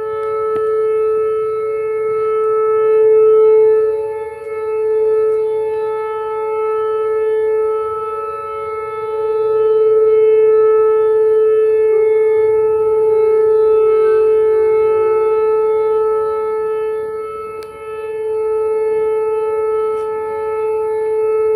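Outdoor tornado warning siren sounding a steady single-pitched tone, swelling and fading in loudness over several seconds as it sweeps around. It is sounding for a severe thunderstorm warning.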